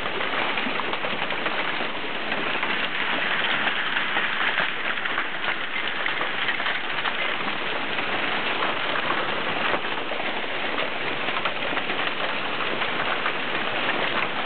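Heavy hail falling with rain, hailstones pelting down in a dense, steady clatter of countless small impacts.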